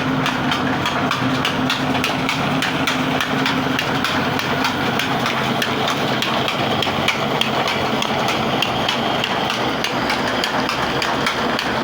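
Heavy diesel engine running steadily, with a regular knocking beat over it.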